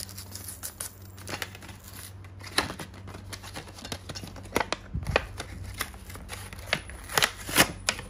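A new Kai fruit knife being unpacked by hand: packaging rustling with an irregular string of sharp clicks and snaps, the loudest two near the end.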